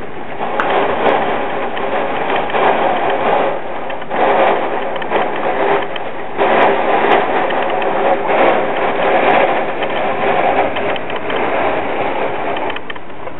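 Hurricane wind and rain beating against an apartment window, a loud steady rush that surges in gusts several times.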